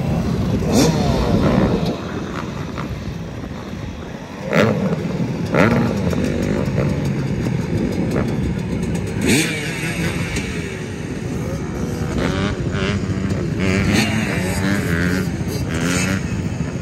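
Dirt bike engine running and revving in repeated bursts, its pitch rising and falling, with sharp rev-ups about four and a half, five and a half and nine seconds in.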